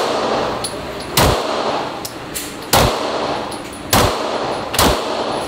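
Semi-automatic pistol fired slowly in an indoor range booth: five sharp shots about a second to a second and a half apart, each echoing off the walls.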